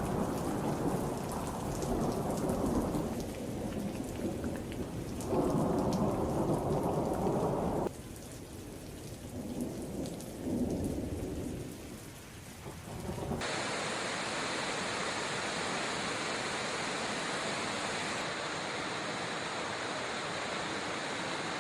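Deep rolling rumble that swells and dies away several times. About 13 seconds in it cuts abruptly to a steady, even hiss of water noise.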